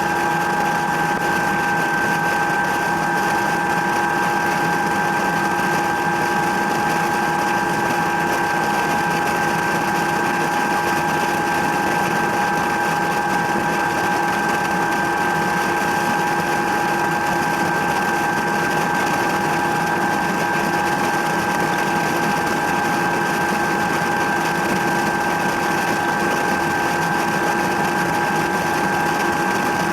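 Helicopter in flight: steady engine and rotor noise with a constant whine made of several steady high tones.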